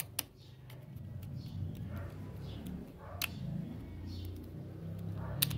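Screwdriver working the terminal screws of a three-gang light-switch plate, tightening a wire, with three sharp clicks of metal on metal over a low hum.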